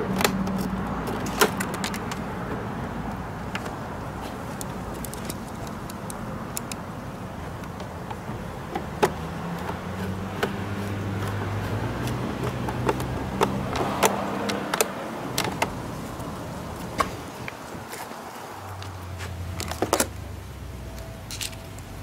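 Scattered light clicks and taps of a Phillips screwdriver and hands working small screws into a scooter's plastic front panel, over a low steady background hum.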